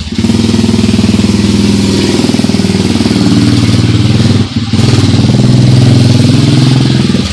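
An engine running loudly and steadily, dipping briefly about four and a half seconds in and dying away at the end.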